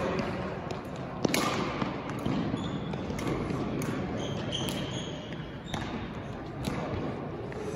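Badminton rally sounds: a few sharp racket strikes on the shuttlecock, with brief shoe squeaks on the court floor.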